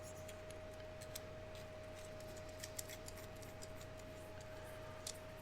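Faint scattered clicks and light ticks of small airbrush parts being handled, over a steady faint hum.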